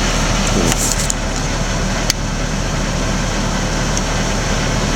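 2003 Chevy S10's 2.2-litre four-cylinder engine idling steadily, heard from inside the cab. A few light clicks come about a second in, and a sharper click at about two seconds.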